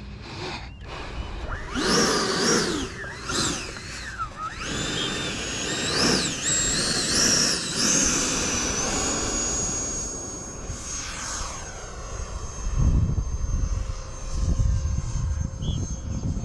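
E-flite Viper 90 mm electric ducted-fan jet whining, rising and falling in pitch several times as the throttle is worked. From about eight seconds in it settles into a steady high whine for the takeoff run, then fades. Low rumbling sets in during the last few seconds.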